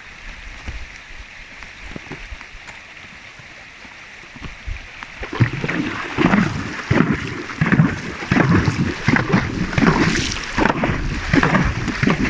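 A horse wading through water, its hooves splashing in quick irregular strokes that start about five seconds in, over a faint steady rush of water.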